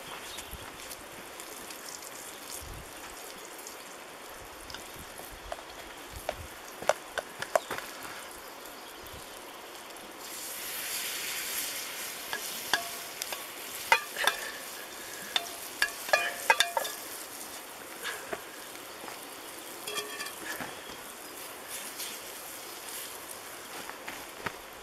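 Bacon fat sizzling in a frying pan over a wood fire. About ten seconds in, chopped green onion tipped into the hot fat sets off a louder sizzle for a couple of seconds. It is followed by a run of sharp metallic clinks as the pan is stirred.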